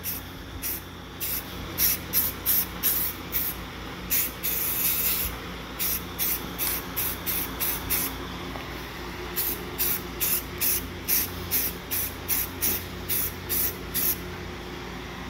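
Aerosol can of Rust-Oleum flat black spray paint hissing in short, quick bursts, about two a second, with one longer spray about four seconds in: light passes laying down a tack coat.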